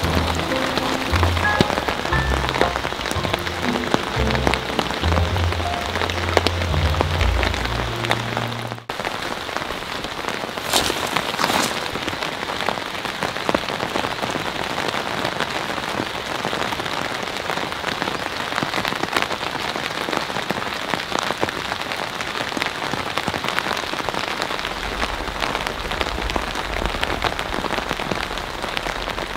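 Steady rain falling, a dense continuous hiss of drops. Background music with low bass notes plays over it for about the first nine seconds and then cuts off, and a low rumble comes in near the end.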